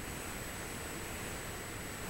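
Steady outdoor background noise: an even hiss over a low rumble, with a faint steady high-pitched whine and no distinct events.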